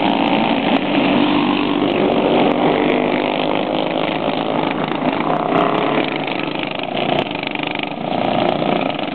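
Several small single-cylinder OHV clone kart engines running hard together, their pitch rising and falling as the karts accelerate, pass and go through the turns.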